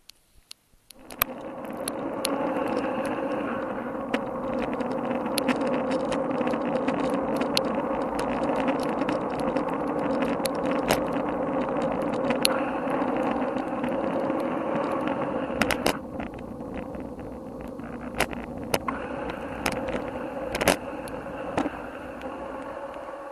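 Steady muffled rushing rumble of wind and road noise on a moving bicycle, heard through an action camera's sealed waterproof housing, with many scattered sharp clicks. It starts about a second in and eases slightly in the last third.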